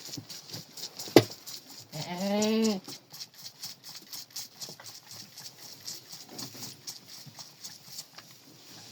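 A goat kid bleats once, a wavering call under a second long, about two seconds in. A sharp knock comes just before it, about a second in, and soft scattered clicks run through the rest.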